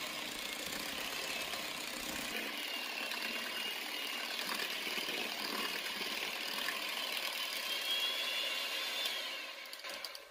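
Electric hand mixer running steadily, its beaters whirring through whipped cream and sweetened condensed milk in a glass bowl. It switches off near the end.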